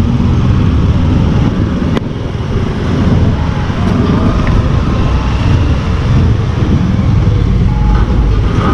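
Motorcycle engine running at low road speed, heard from the rider's seat with steady wind rumble on the microphone.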